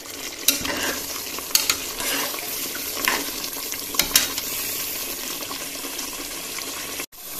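Chicken masala sizzling in a metal pressure cooker pot while a perforated metal ladle stirs it, clinking and scraping against the pot several times. The sound breaks off for a moment near the end.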